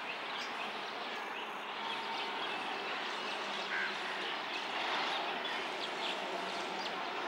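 Steady outdoor background noise with scattered short bird chirps.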